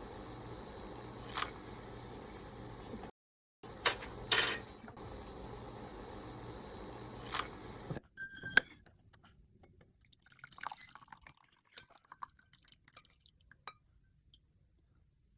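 Betel leaf tea being made: a steady hiss, broken by edit cuts, with a few sharp clinks over the first half. Then faint clinks and trickling of liquid, as the tea is poured into a glass.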